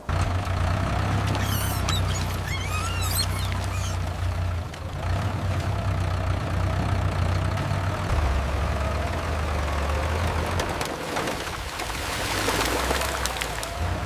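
Small tractor engine running steadily with a low, even hum. A few high chirping glides sound briefly about two to three seconds in.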